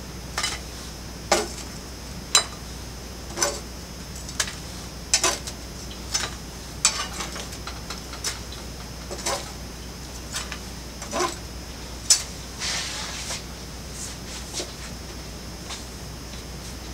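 Metal spatula clinking against a ceramic plate and baking sheet as baked stuffed-dough pieces are lifted and set down: sharp single clinks about a second apart, with a short scrape a little past the middle.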